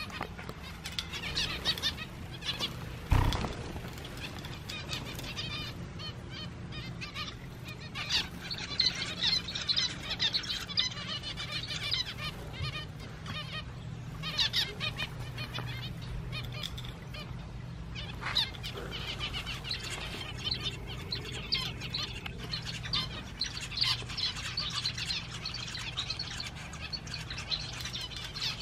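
A flock of small aviary finches, chiefly zebra finches, chirping and calling without a break in many short, overlapping notes, over a steady low hum. A single loud thump about three seconds in.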